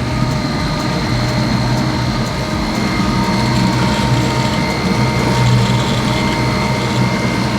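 Boat engine running steadily while trolling: a continuous low drone with a faint steady whine over it.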